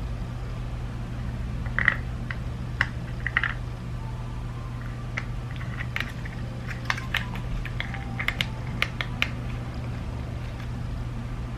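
Scattered light clicks and taps of small plastic parts of a BMW iDrive controller being handled and fitted together, a few at first, then a quicker run of them in the middle. A steady low hum lies under them.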